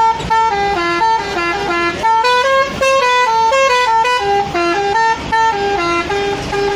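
Telolet horn, a multi-tone bus horn, playing a brisk tune of short stepped notes, two notes sounding together and changing a few times a second.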